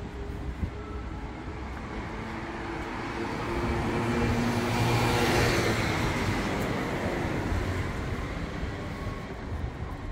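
A motor vehicle drives past on the street, its engine and tyre noise building to a peak about halfway through and fading away, over steady traffic background.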